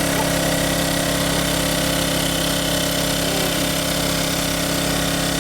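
Engine of a water pump running steadily at a constant speed while it pumps the pond dry.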